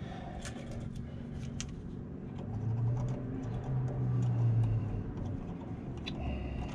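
Scattered light metallic clicks and taps of pliers and a steel tension spring being worked onto a belt tensioner, with a low hum swelling for a couple of seconds in the middle.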